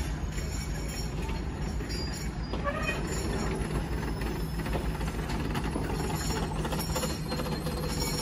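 Passenger coaches rolling slowly past on the rails, a steady rumble over the low, even drone of a diesel locomotive.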